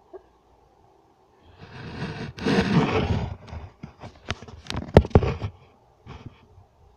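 Handling noise from a camera being picked up and moved: a rustling scrape for a second or two, then a quick run of sharp knocks and clicks.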